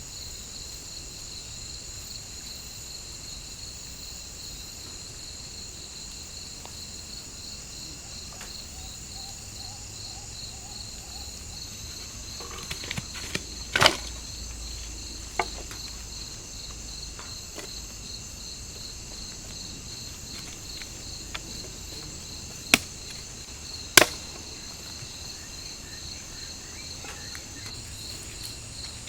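Forest insects chirring steadily in a high, pulsing chorus. A few sharp knocks cut through it, a short cluster about halfway through and two more a little over a second apart near the end.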